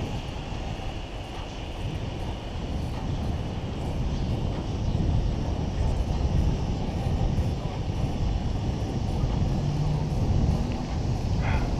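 Steady wind rush on the microphone with tyre and road noise from a bicycle rolling along a paved street, a little louder from about four seconds in.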